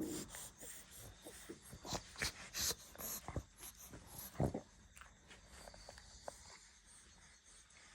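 A dog breathing noisily: a series of short, irregular breath sounds, the loudest about four and a half seconds in.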